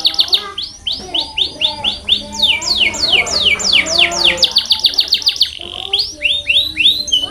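Canary singing: fast trills of repeated high, downward-sweeping notes in runs, several notes a second, over a lower, quieter warble.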